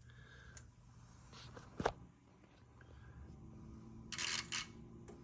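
Tektronix 11403A digitizing oscilloscope powering up for its self-test: a sharp click about two seconds in, then a steady low hum from the instrument sets in. A short noisy rush comes about four seconds in.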